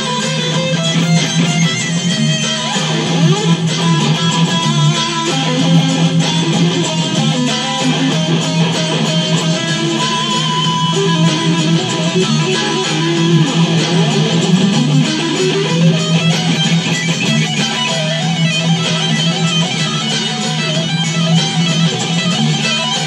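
Electric guitar shred solo played over a metal backing track, with a note sliding up in pitch about fifteen seconds in.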